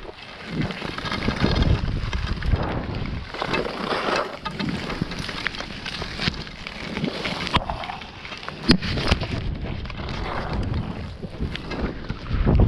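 Wind buffeting the camera microphone while skiing, with skis hissing and scraping over the snow in swells that come and go every second or two. One sharp knock about nine seconds in.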